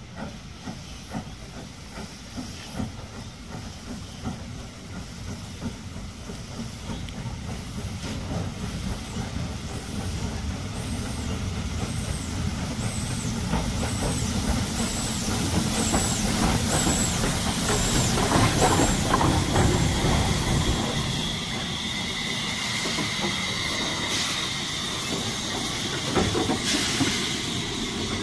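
Small steam tank locomotive running slowly into the platform with steam hissing from its open cylinder drain cocks, over a low rumble of wheels on the rails. The sound grows louder as the engine draws near, and a steady high whine joins in during the second half.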